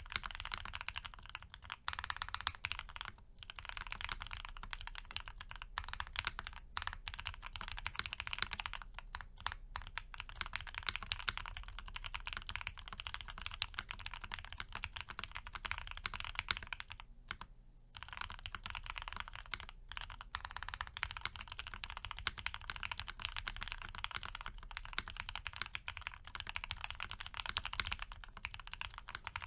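Continuous fast typing on a Piggy 60 mechanical keyboard with a polycarbonate plate, Gateron FC switches lubed with Krytox 205g0 and filmed, and CRP APL keycaps. Rapid keystrokes with two brief pauses, about three seconds in and just past halfway.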